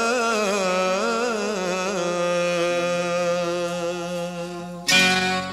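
Hindi film song music: a long, wavering melodic line held over sustained notes, with plucked strings coming in near the end.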